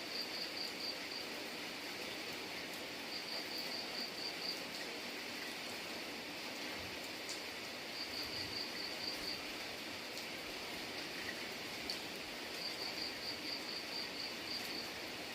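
Steady rain falling, a constant hiss with an occasional drip tick. Over it, a high chirp repeats in short bursts of rapid pulses, each about a second long and coming roughly every four seconds.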